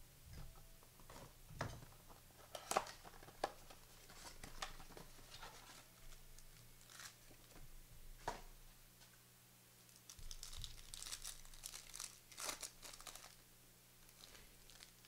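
Trading card packs being torn open and their wrappers crinkled by hand: scattered rustles and small clicks, with a longer stretch of crinkling about ten seconds in.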